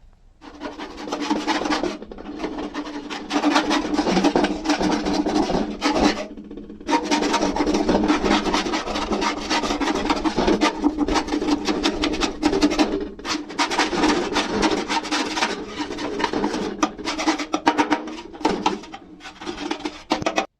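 Rapid scraping strokes of a rasp or file on a hard surface, going in long stretches broken by a few short pauses.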